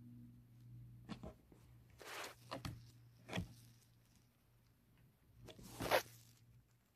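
Several short bursts of rustling and scuffing, the loudest near the end, over a faint steady hum.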